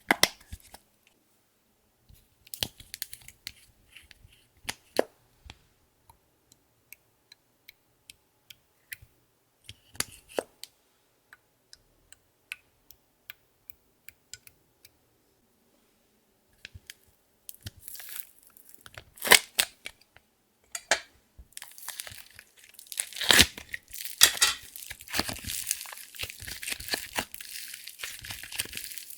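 Clear slime being worked by hand: scattered sticky clicks and pops, a few louder snaps, then dense continuous crackling for the last several seconds.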